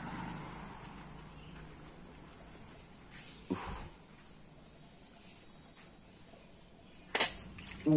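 A fishing spear thrust into shallow river water at night: a sharp, loud splash just after seven seconds, with a smaller, duller splash about halfway through. A faint steady high hiss runs underneath.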